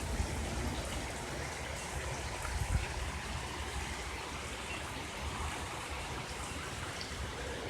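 Heavy rain pouring down during a hailstorm, a steady rushing hiss with a low rumble underneath.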